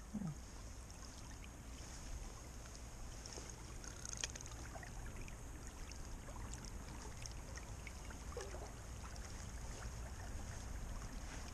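Faint, steady rush of fast-running creek water.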